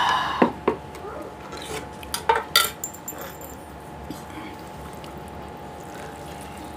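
Forks clinking and scraping against a serving tray as noodles are picked up. There are a couple of sharp clicks about half a second in and a quick cluster of them a little past two seconds.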